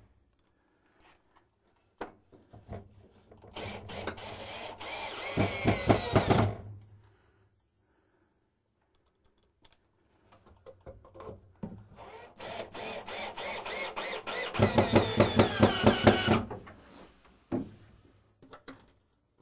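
Cordless drill driving wood screws into a sauna's wooden sidewall, two runs of a few seconds each. The motor whine rises in pitch, and each run ends in a quick series of clicks as the screw seats.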